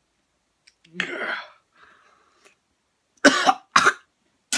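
A man coughing and clearing his throat, set off by a drink of garlic, pepper, chili seasoning and onion granules. There is a throaty groan about a second in, then three harsh coughs in quick succession near the end.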